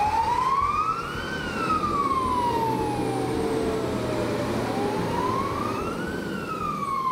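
Emergency vehicle siren wailing: its pitch rises over about a second and a half, then falls slowly, and this happens twice, over a steady noisy background.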